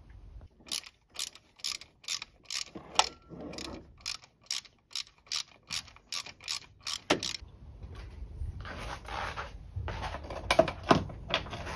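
Hand socket ratchet clicking in an even run of about three clicks a second as an E12 Torx bolt on the engine's belt-tensioner bracket is undone. Near the end the clicking gives way to softer scraping and handling noise.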